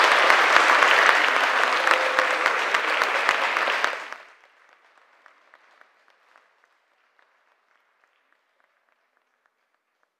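Audience applauding: a full, dense round of clapping that dies away suddenly about four seconds in, leaving a few scattered faint claps.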